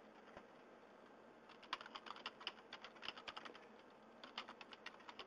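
Faint computer keyboard typing: a quick run of keystrokes beginning about a second and a half in, a short pause, then another run near the end as a user name and then a password are keyed in.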